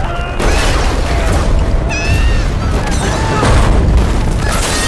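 Heavy crashing rumble of a building being smashed apart, with scattered debris and a high scream around two seconds in, over dramatic music.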